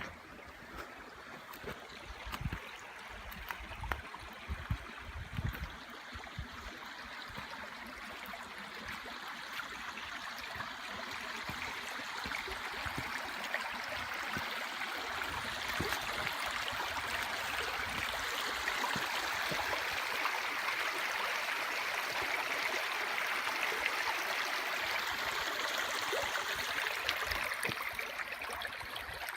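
Running water of a stream, a steady rush that grows louder over the first twenty seconds or so and then holds level. A few soft low thumps come in the first several seconds.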